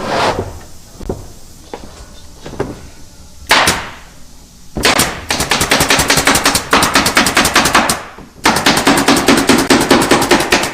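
Pneumatic upholstery staple gun firing in rapid runs of sharp shots, several a second, with a short break about three quarters of the way through; a couple of single shots come first.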